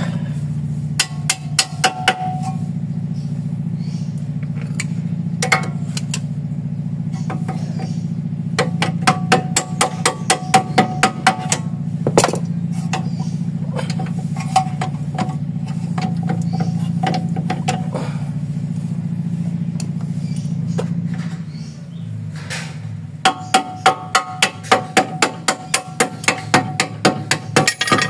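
Runs of sharp metallic clicks and taps from hand tools working on a car's front steering knuckle and ball joint, about four a second at their fastest. Under them runs a steady low hum that stops about three-quarters of the way through.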